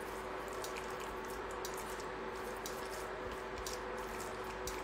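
Blue silicone spatula stirring oiled, spice-coated raw chicken wings in a ceramic baking dish: soft, wet squishing with scattered faint clicks and scrapes against the dish.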